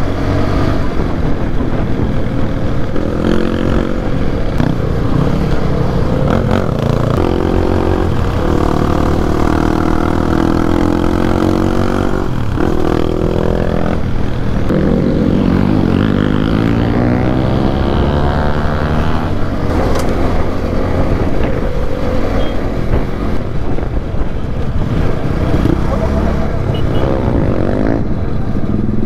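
Motorcycle engine running on the road, its pitch rising and falling several times as the rider accelerates and shifts gears, over a steady low wind rumble on the helmet-mounted microphone.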